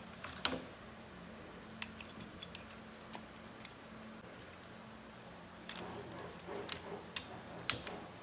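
Parts of a laptop cooling fan bracket being handled and fitted together: scattered sharp plastic clicks and taps with some light rustling, the loudest click near the end.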